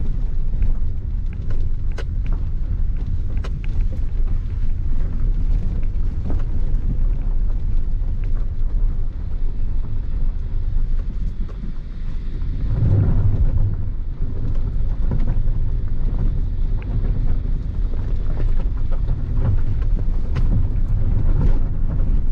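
In-cabin noise of a Maruti Suzuki Ignis crawling in low gear over a rough, rocky unpaved road: a steady low engine and tyre rumble with scattered sharp knocks and rattles. The rumble swells louder for a moment about halfway through.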